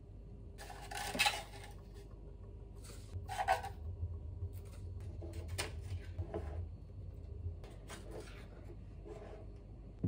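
Scraping and rustling from kitchen handling: a plastic scoop scraping and rustling in a stiff resealable bag of powder, then a small spoon scraping salt out of a plastic tub, in short scattered bursts. The loudest bursts come about one second and three and a half seconds in.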